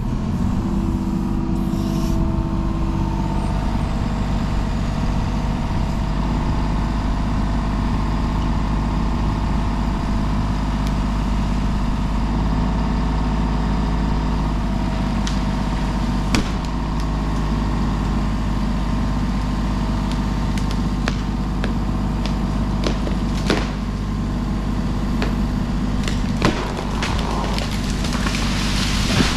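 Kubota KX033 compact excavator's diesel engine running steadily, with a few sharp knocks partway through.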